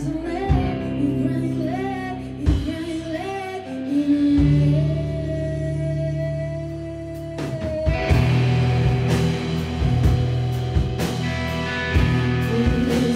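Live rock band playing, with a woman singing lead over electric guitars, bass and drum kit. A long note is held through the middle, and about eight seconds in the drums and the rest of the band come in fuller and louder.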